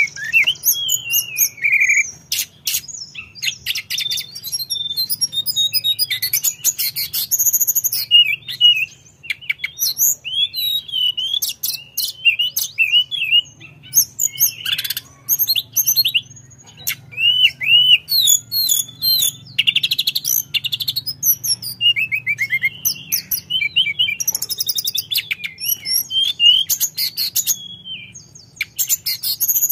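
Caged male hill blue flycatcher (tledekan gunung) singing a long, varied song of clear slurred whistles, quick trills and rapid chattering phrases, with only short pauses between phrases.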